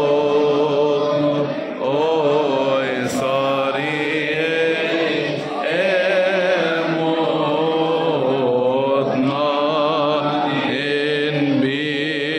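A group of children singing together in unison, a continuous sung melody with wavering held notes.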